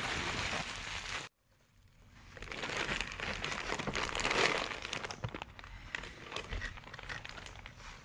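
Clear plastic bag crinkling as gloved hands handle and unwrap it. The sound cuts out abruptly about a second in. It then fades back in, is loudest in the middle, and thins to lighter crackles near the end.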